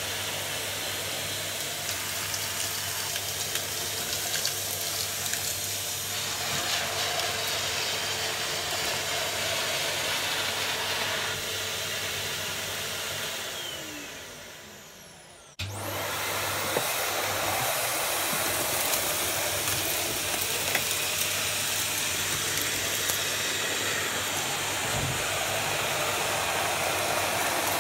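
Numatic vacuum cleaner running, sucking dust and debris off carpet through a straight suction floor nozzle. About halfway through, the motor slows down with a falling whine. It then runs again, cutting in suddenly, now with an Airo turbo brush nozzle on the carpet.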